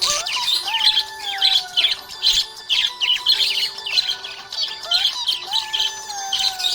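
Budgies chirping and squawking in a dense, continuous stream of quick high chirps, over background music.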